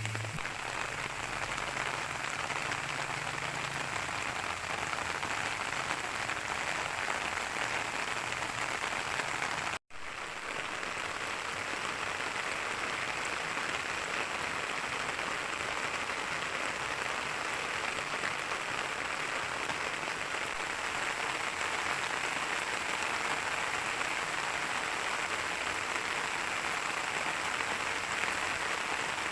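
Steady rain falling, an even hiss of drops that cuts out for an instant about ten seconds in.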